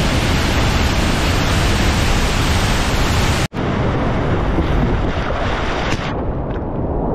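Loud steady roar of a waterfall pouring into its pool. About three and a half seconds in it cuts abruptly to rushing river water heard from a whitewater kayak, with splashing as the boat drops off a ledge into foaming water. Near the end the sound turns muffled, leaving a low rush.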